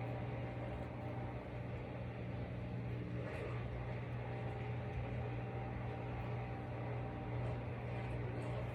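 Steady low mechanical hum at an even level, with a few faint small clicks over it.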